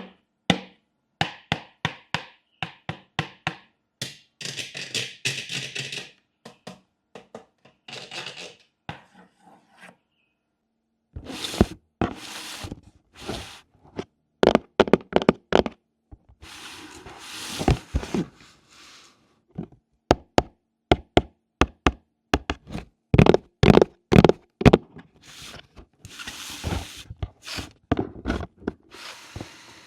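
Small hard plastic toy pieces of a miniature bathroom set handled close up: irregular sharp taps, clicks and knocks as they are picked up and set down, with several short spells of rustling.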